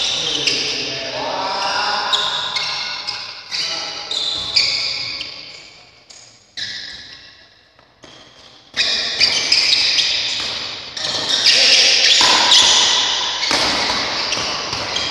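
Badminton play: sharp racket hits on the shuttlecock and short high squeaks of shoes on the court floor, with some voices. Past the middle it dies down for about two seconds between rallies, then starts again with a sudden hit.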